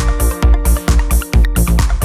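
Electronic background music with a steady dance beat and heavy bass.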